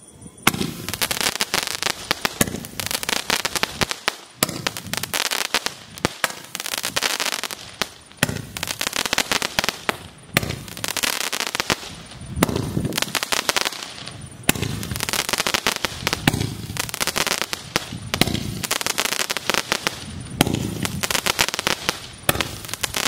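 Garuda Fireworks 'Peacock Dance' aerial firework going off in repeated bursts, a sharp report about every two seconds. Each report is followed by a couple of seconds of dense crackling.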